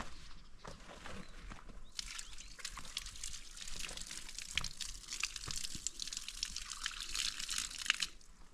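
Water running or splashing, starting suddenly about two seconds in and cutting off near the end, over scattered light clicks and knocks.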